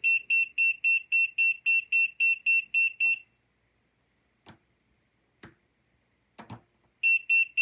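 Tesmen TCM-300D clamp meter beeping rapidly in its LIVE contact-voltage mode, a high, even beep about four times a second: its alert that the probe is touching a live conductor. The beeping stops about three seconds in, a few faint clicks follow, and it starts again near the end.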